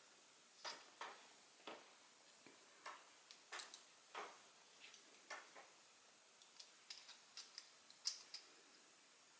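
Faint, irregular small metal clicks and ticks, about twenty of them, as the screws of a folding pocket knife are started with a small Torx driver during reassembly.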